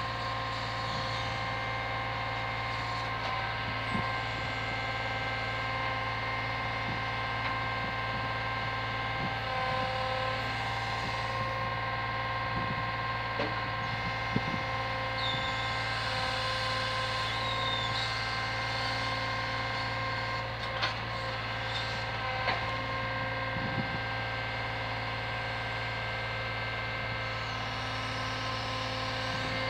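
Lorry engine running steadily to power a truck-mounted hydraulic crane, a constant drone with several fixed pitches. A few short knocks and clunks sound now and then as the crane's brick grab handles packs of bricks.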